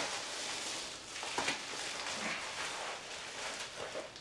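Crinkling and rustling of a metallic bubble mailer as a boxed item is pulled out of it, with a sharper crackle about a second and a half in.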